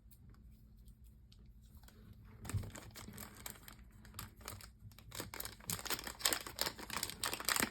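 Plastic packaging crinkling and rustling in the hands as tape is worked off a cube's wrapping: faint at first, then a busy run of small crackles from about two and a half seconds in.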